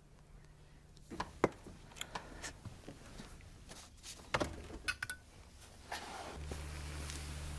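Quiet handling noises: scattered light knocks and clicks, with a small cluster of them a little past the middle. About six seconds in, a low steady hum comes in.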